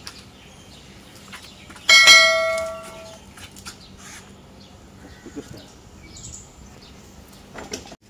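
A single metallic ring, struck once about two seconds in and dying away over about a second, its lowest note lasting longest, like a small bell or a piece of struck metal.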